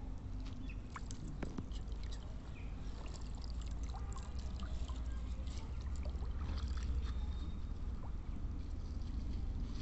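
Pond water sloshing and splashing as a person wades and lifts a wet cloth net out of the water, with drips and small splashes throughout, over a steady low rumble.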